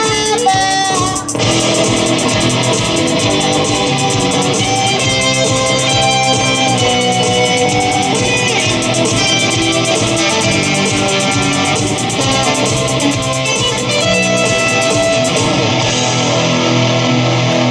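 Rock band playing an instrumental passage: strummed electric guitars over bass guitar and a steady drum beat, just after a held sung note ends about a second in.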